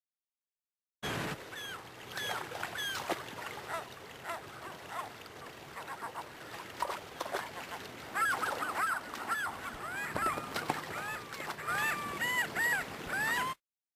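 A flock of gulls calling over rushing river water: repeated short rising-and-falling cries, growing busier about eight seconds in. The sound starts about a second in and cuts off suddenly near the end.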